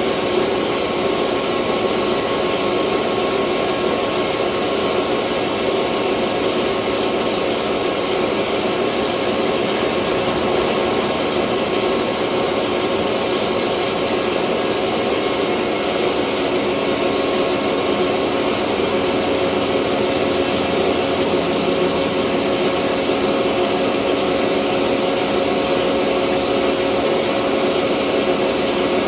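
Rice mill running steadily: a loud, even machine noise, a constant hum with a hiss over it, unchanging throughout.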